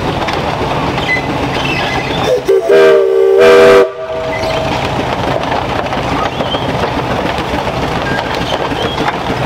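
Steam whistle on a Frick Eclipse steam traction engine: a short rising toot then a held chord-like blast of about a second that cuts off sharply, a couple of seconds in. Under it, the steady running noise of the engine driving on its iron wheels along gravel.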